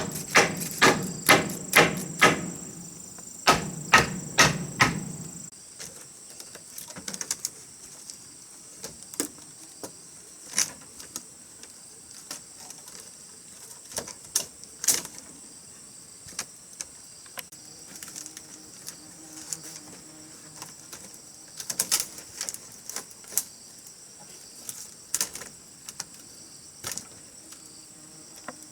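Repeated strikes on wood, about three a second, for the first five seconds with a brief break, then scattered lighter taps and knocks. A steady high insect chirring runs underneath.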